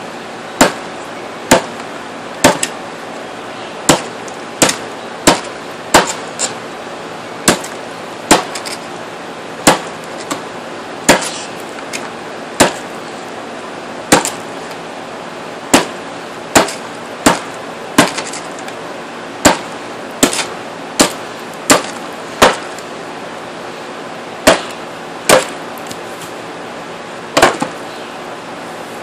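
Custom Shawn Hatcher cleaver chopping into a board, about two dozen sharp chops, roughly one a second.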